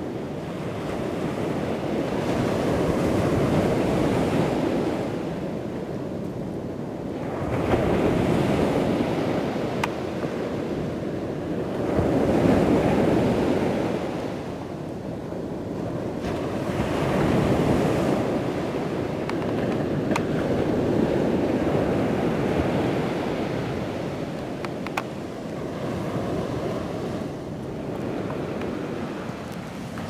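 Ocean surf breaking on the beach, a steady wash that swells and ebbs every four or five seconds, with wind on the microphone.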